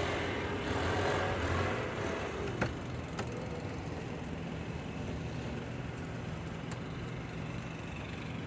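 Steady low mechanical hum, a little louder for the first couple of seconds, with two sharp clicks about two and a half and three seconds in.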